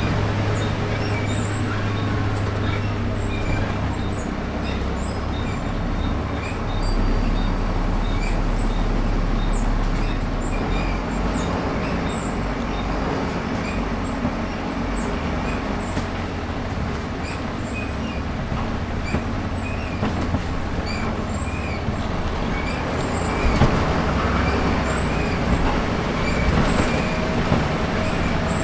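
Cabin noise aboard a Volvo B7RLE single-deck bus under way: the six-cylinder diesel engine drones under road noise, with scattered light ticks and rattles. The engine note shifts about four and ten seconds in, and the sound grows louder near the end.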